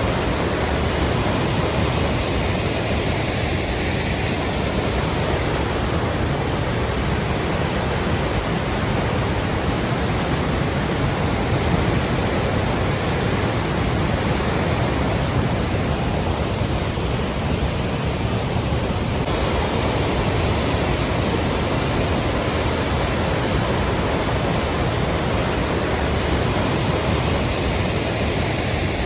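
Water rushing, a steady unbroken roar of flowing water such as a waterfall or fast stream.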